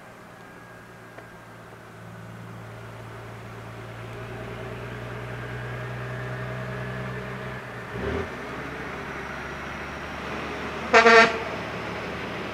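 Convoy of American semi-trucks approaching, their diesel engines growing steadily louder, with one short, loud air-horn blast about eleven seconds in.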